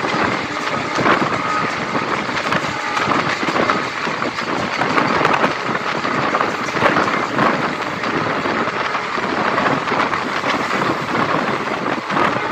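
Running noise of an Indian Railways passenger train heard from an open coach doorway: wheels rolling on the rails with a steady rush and frequent small clicks and clatter.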